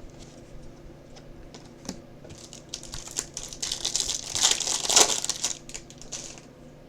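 Trading cards and their packaging being handled, with quick crinkling and clicking that builds for a few seconds and dies away near the end.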